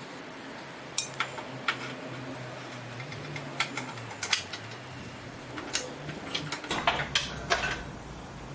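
Scattered metallic clinks and knocks from the steel parts of an engine hoist being handled and set up, over a faint steady hum. A low rumble comes in near the end.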